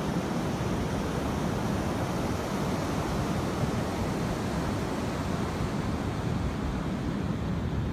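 Steady wash of ocean surf breaking on a sandy beach, with wind rumbling on the microphone.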